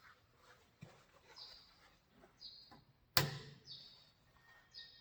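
Faint, high bird chirps repeat every second or so, with a single sharp click about three seconds in.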